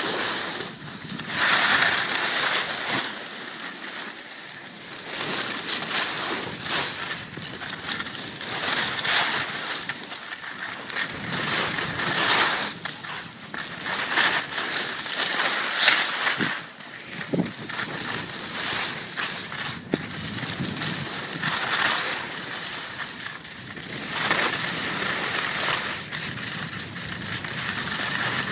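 Skis scraping and hissing over packed snow through a series of turns, the noise swelling and fading every second or two.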